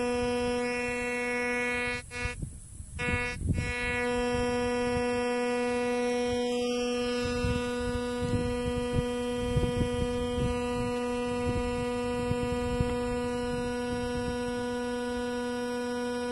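Landstar metal detector sounding a steady buzzing target tone while its coil is held over buried metal. The tone drops out for about a second around two seconds in and again briefly a moment later, then holds.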